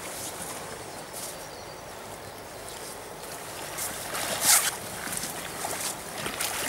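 River water running steadily, with a hooked fish splashing at the surface close to the bank: one loud splash about four and a half seconds in, then smaller splashes near the end.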